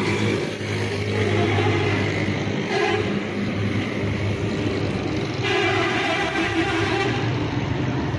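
Suzuki Mehran's three-cylinder engine idling steadily, a constant low hum.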